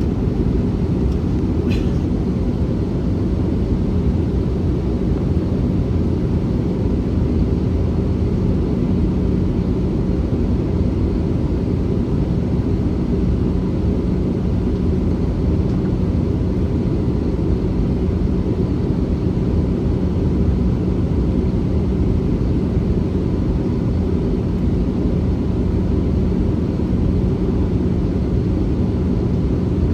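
Steady cabin drone of an Airbus A321-211 in flight: its CFM56 jet engines and the airflow over the fuselage make an even, deep rushing noise with a constant hum underneath. A faint click comes about two seconds in.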